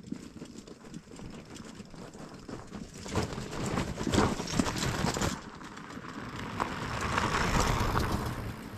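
Mountain bike rolling over a rough dirt-and-rock trail: tyre crunch and a rattling clatter of small knocks, getting louder about three seconds in.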